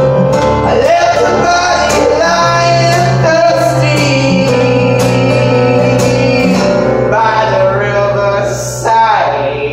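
Live acoustic duo: steel-string acoustic guitar and a Korg keyboard playing a slow song, with a man and a woman singing long held notes. Near the end the music begins to fade as the song closes.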